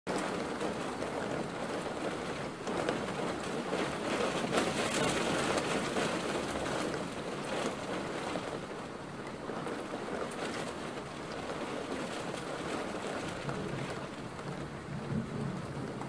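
Steady rain falling, a little louder about four to six seconds in.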